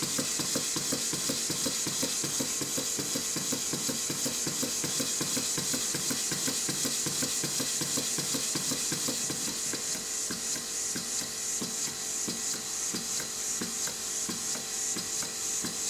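Stuart model beam engine running on compressed air, with a rapid, regular knocking on every stroke over a steady high hiss of exhausting air. The knocking is there because the valve timing has not been set yet.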